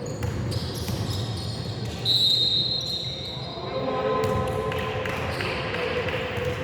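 Ball bouncing on a court in a large hall, with scattered knocks and voices. About two seconds in, a high steady tone sounds for about a second.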